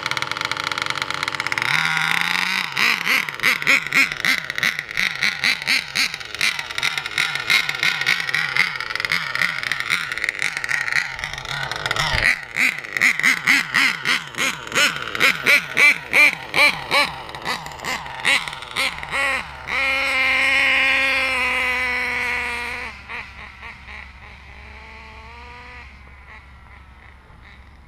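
Nitro RC car's Nova 28-8 glow engine with an ERCM end-bleed tuned pipe, idling, then blipped over and over, about two revs a second, in a high-pitched buzz. Near the end it holds a steady high pitch at full throttle, then the pitch drops and the sound fades away.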